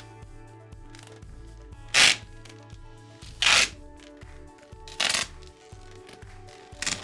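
Background music with steady sustained notes, cut through by four short, loud swishes of noise about a second and a half apart.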